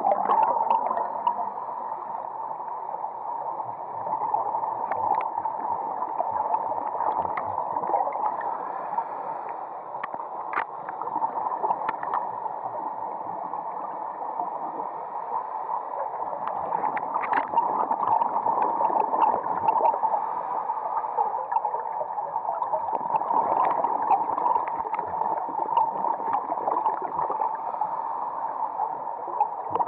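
Muffled underwater ambience: a steady hiss with scattered clicks and ticks and gurgling bubbles that swell and ebb every few seconds.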